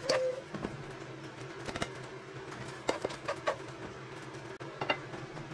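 Serving spoon knocking and scraping against a saucepan and a plate as cooked rice is dished out: a handful of separate clinks, some ringing briefly, over a low steady hum.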